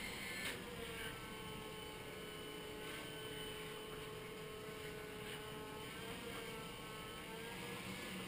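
iRobot Scooba 230 robotic floor mop running: a steady motor whine whose pitch wavers slightly, with a few soft ticks.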